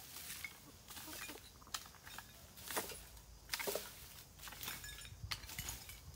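A long-handled hoe scraping and raking dry leaves and dirt, in several uneven strokes about a second apart.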